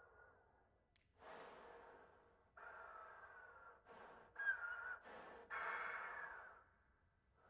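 Trombone sounded with breath alone: about six rushes of air blown through the horn, some long and some short, with a faint thin pitch riding on the air noise.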